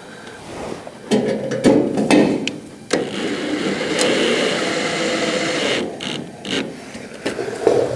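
Cordless drill driving screws into a sheet-metal inner wheelhouse: short bursts with a few knocks in the first seconds, then a steady run of about three seconds that stops suddenly, followed by a few small knocks.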